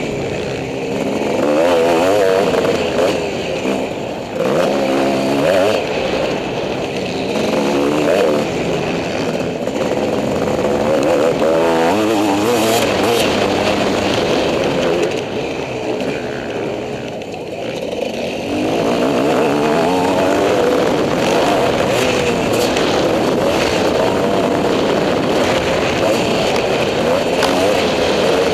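GasGas EC 250 enduro motorcycle engine heard from the bike itself, revving up and down over and over as the rider works the throttle through the bumps and turns of a dirt track. About sixteen seconds in it eases off and quietens for a couple of seconds, then pulls hard again.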